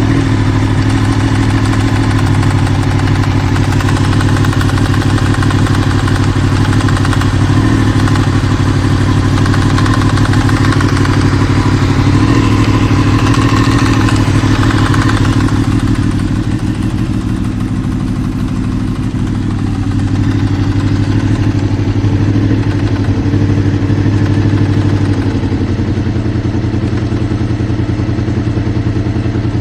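2002 Honda VFR800 VTEC's V4 engine running at low revs, a little louder in the first half and easing off about halfway through. It carries the knocking that the owner hears only between 1500 and 2000 rpm once the engine is warm, and places on the right side, possibly the rear cylinder.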